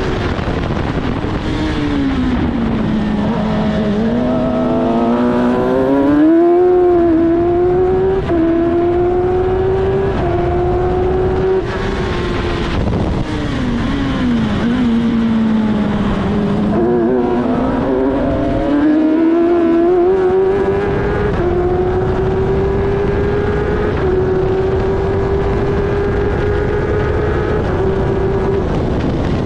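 The 1000 cc Suzuki motorcycle engine of an F1000 single-seater, heard onboard at racing speed. Its revs fall away twice, a few seconds in and again around the middle, then climb again through a series of quick upshifts, each one a brief dip in pitch.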